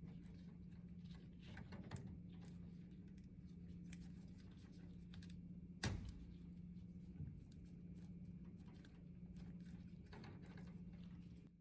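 Faint rustling, crinkling and small clicks of vinyl electrical tape being wrapped around a light switch's body, with one sharp click about six seconds in, over a steady low hum.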